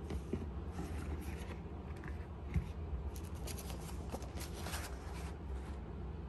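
Light rustling and scraping of things being handled, over a low steady hum, with one soft knock about two and a half seconds in.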